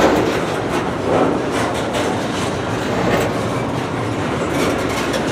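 Intermodal freight train's container cars rolling past, a steady rumble of steel wheels on the rails with repeated clacks, the sharpest right at the start.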